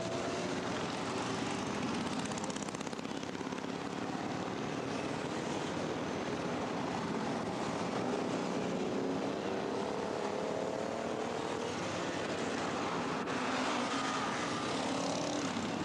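Motorcycle engine running at speed under heavy wind rush, its pitch rising slowly as it accelerates partway through.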